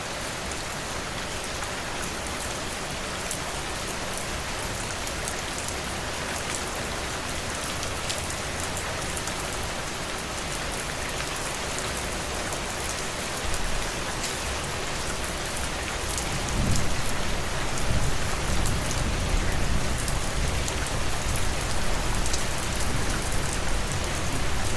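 Steady rain falling and pattering on a surface, an even hiss flecked with small drop ticks. About two-thirds of the way through, a low rumble rises underneath and the whole sound grows louder.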